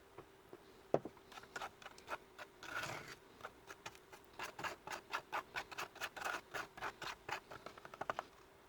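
Short rubbing or scraping strokes by hand, in a quick regular series of about four a second through the second half, with a single sharp knock about a second in.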